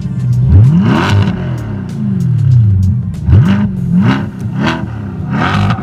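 Supercar engine free-revved at a standstill: a series of sharp rev blips, the pitch shooting up and sliding back down each time, with sharp exhaust pops throughout.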